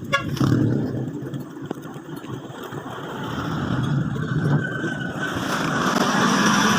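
Motor traffic on the road, with an engine rumble that grows louder in the second half.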